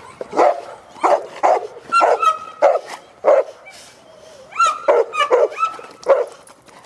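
Cane corsos barking excitedly in play: about ten short, loud barks at an uneven pace, with a few higher drawn-out yelps mixed in.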